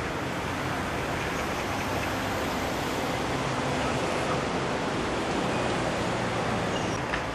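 Steady outdoor background noise: an even hiss with a low hum underneath, and one short click about seven seconds in.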